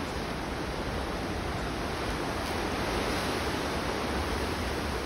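Ocean surf washing over rocks, a steady rush of noise that swells a little midway.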